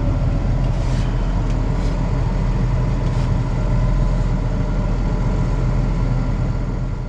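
Deutz tractor engine running steadily, a continuous low drone heard from inside the closed cab.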